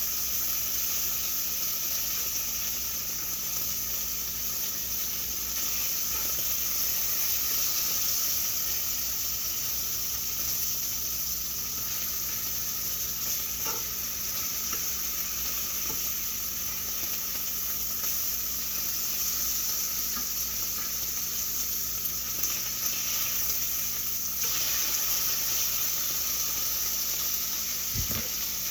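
Food frying in a hot pan, with a steady sizzle.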